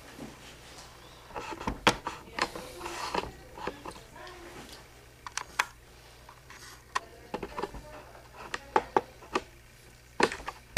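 Close handling noises: irregular sharp clicks and short rubbing, rustling sounds, several clustered about two seconds in and again near the end.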